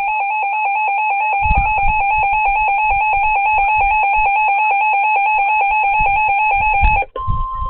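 Weather radio alert alarm: a loud electronic tone warbling rapidly and evenly, cutting off about seven seconds in, then a steady single-pitch alert tone near the end. It signals the start of a severe thunderstorm warning broadcast.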